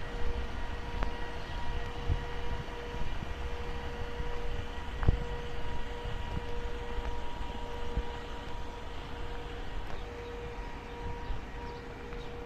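RV380 refrigeration unit on a Fiat Ducato van running: a steady mechanical hum with a constant whine, and a sharp click about five seconds in.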